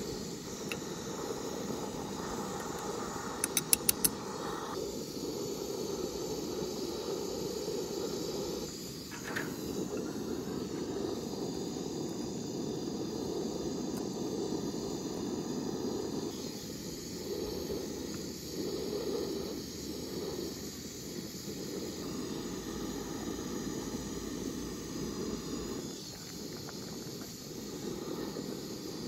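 Canister-gas camping stove burner hissing steadily under a pot of boiling spaghetti water. About four seconds in there are a few quick sharp clicks of metal tongs against the pot.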